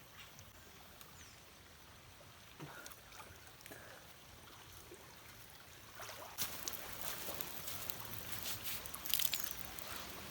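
Water sloshing and trickling with scattered small clicks and splashes. It gets louder and busier about six seconds in.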